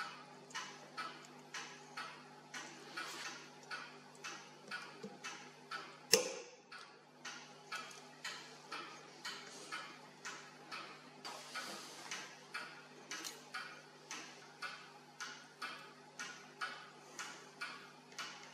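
A clock ticking steadily, about two ticks a second, with one sharp, louder click about six seconds in.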